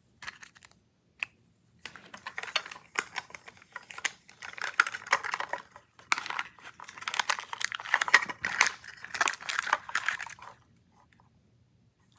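Paper and plastic packaging of a Mini Brands toy capsule being unwrapped by hand, in irregular runs of crinkling, rustling and quick crackly clicks. It stops shortly before the end.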